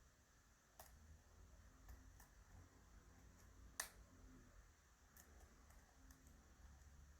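Near silence broken by faint, scattered clicks of a lock pick working the pin stacks of an ASSA 600 pin-tumbler lock, one sharper click just under four seconds in.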